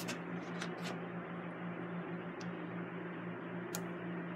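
Steady low hum with an even fan-like hiss, a few faint light clicks on top.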